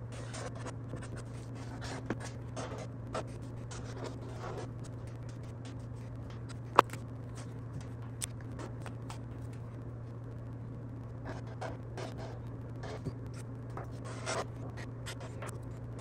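Felt-tip marker drawing on kraft paper: a run of short scratchy strokes over a steady low hum, with a single sharp click about seven seconds in.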